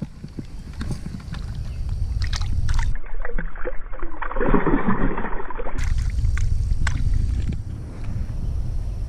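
Shallow water sloshing and splashing as a hand lowers a caught fish into the water at the bank and lets it go, over a steady low rumble. The sound turns muffled for a few seconds in the middle.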